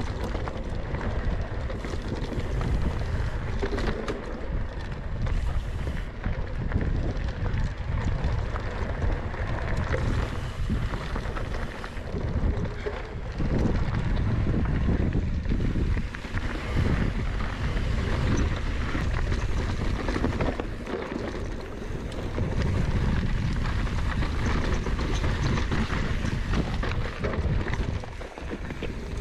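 Wind rumbling on the microphone and the rough, steady noise of a mountain bike's tyres and frame running fast over a dirt trail, with a few brief lulls.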